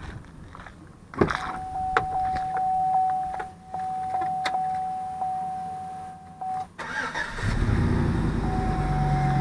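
2005 Chevrolet Tahoe being started: a steady dashboard warning chime tone with small clicks for several seconds, then the engine cranks and catches about seven seconds in and settles into a steady idle. The power steering pump knock is not heard at start-up, before the wheel is turned or the brake pressed.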